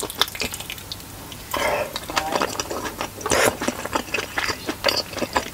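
Close-miked chewing and lip-smacking of a pork momo (steamed dumpling): a dense run of quick, irregular mouth clicks, with louder bursts about one and a half and three and a half seconds in.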